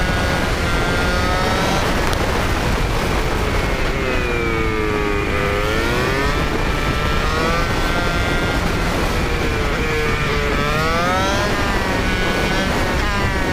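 Motorcycle engine running under way, its pitch falling and rising several times as the bike slows and speeds up through its gears, over a steady rush of wind noise.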